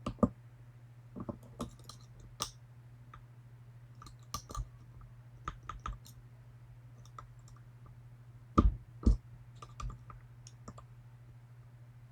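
Lock picks and tension tool clicking and tapping inside a Medeco M3 biaxial camlock as the pins and sidebar are worked, in scattered sharp clicks. There are two louder knocks about two-thirds of the way through.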